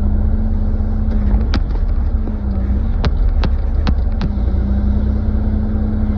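Kubota KX040-4 mini excavator's diesel engine running steadily while the machine works, its pitch sagging slightly twice as it takes load. About five sharp clicks or clanks come in the middle of the stretch.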